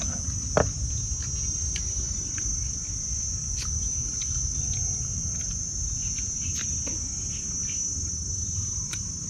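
Steady high-pitched drone of insects that never lets up, over a low rumble of background noise. A sharp click comes about half a second in, and a few fainter ticks are scattered through.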